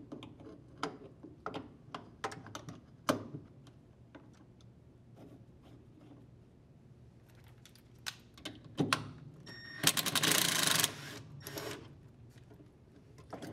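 Light metal clicks and clinks of a steel three-jaw puller being fitted over a washer's plastic transmission pulley and its T-handle screw being turned. About ten seconds in comes a louder, noisy stretch lasting about a second.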